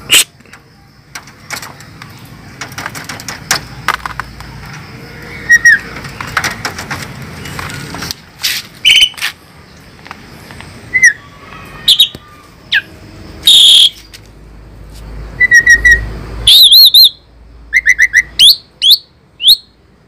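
Asian pied starling (jalak suren) calling: a run of loud, short whistles and quick warbled notes, with scattered clicks between them. The calls come thickest in the second half.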